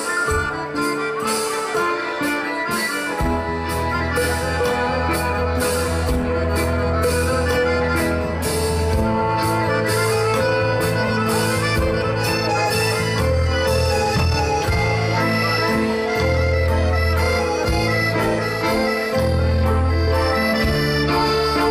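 Live band playing an instrumental passage: a drum kit with regular cymbal strokes and held melody tones, with a bass line coming in about three seconds in.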